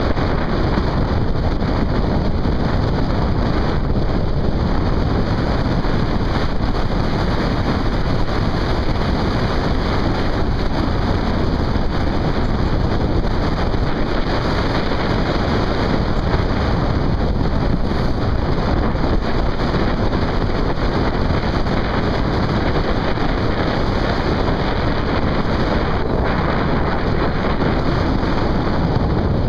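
Steady wind noise on the microphone mixed with the running and road noise of a motorcycle riding along at speed.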